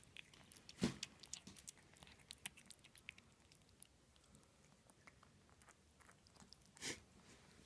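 Faint, quick clicks of an American Shorthair kitten lapping and chewing soft paste cat food, thinning out after the first few seconds. Two louder brief noises stand out, one about a second in and one near the end.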